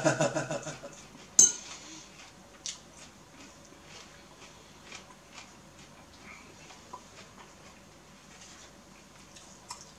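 Metal fork clinking and scraping against a ceramic bowl while noodles are twirled and lifted, with one sharp clink about a second and a half in and a few faint taps after. A brief voiced hum at the very start.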